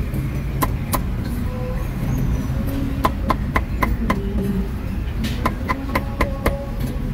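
Meat cleaver chopping roast meat on a thick wooden chopping block: a pair of strikes in the first second, then runs of quick strikes about four a second around three seconds in and again near six seconds, over a steady low rumble.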